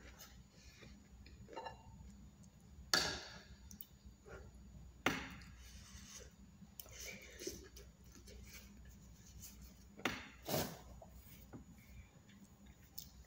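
Metal spoon clinking and scraping against a plate of rice during a meal, with sharp clinks about three, five and ten seconds in.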